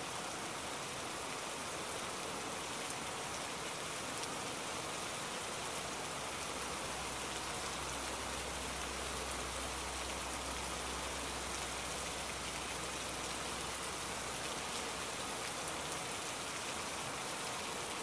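Steady hiss of rain-like falling water, even throughout, with a faint low rumble under it from about six seconds in to near the end.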